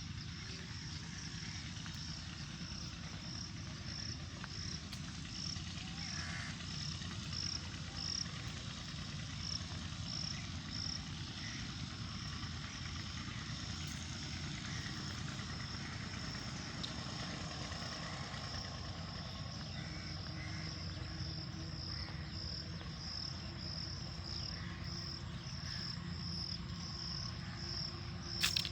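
Outdoor park ambience: a high, thin chirp repeating steadily about twice a second over a low, even rumble, with a few faint calls in between and a sharp click near the end.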